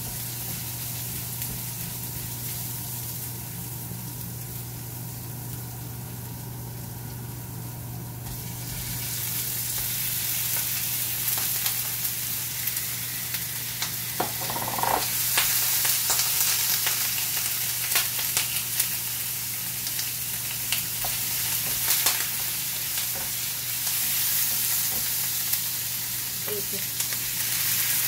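Garlic sizzling in hot oil in a frying pan, stirred and scraped with a wooden spatula. The sizzle gets louder about eight seconds in, and in the second half slices of raw pork go into the pan and fry with it.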